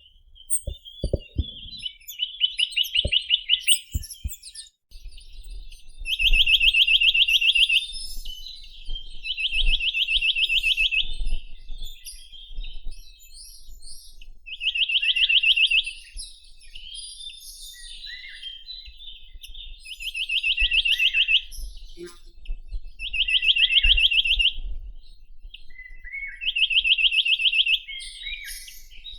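Chinese nuthatch singing: a fast, even trill about a second and a half long, repeated about seven times a few seconds apart, with faint high chirps between. A few low knocks in the first few seconds.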